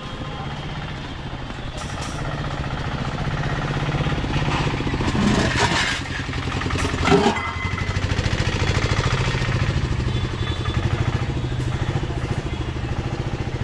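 A motor vehicle's engine running close by with a steady low throb, growing louder over the first few seconds. A brief louder noise comes about seven seconds in.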